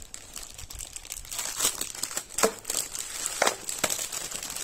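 Small clear plastic packets of jewellery crinkling and rustling as they are handled and shuffled, with a few sharper crackles about two and a half and three and a half seconds in.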